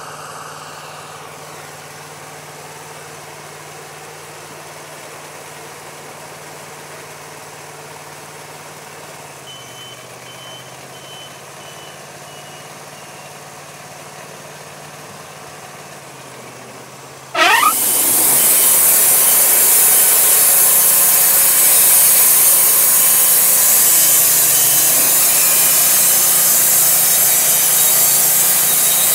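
Wood-Mizer LT40 portable band sawmill idling steadily. About two-thirds of the way through it revs up suddenly with a short rising whine as the band blade engages, then runs loud and steady at full speed.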